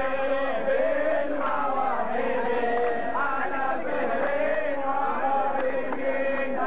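A group of men chanting together, their voices held on long, wavering pitches.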